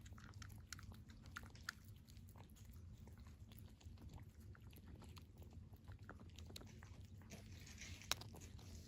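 A cat chewing food, a faint run of many small chewing clicks, with one sharper click about eight seconds in.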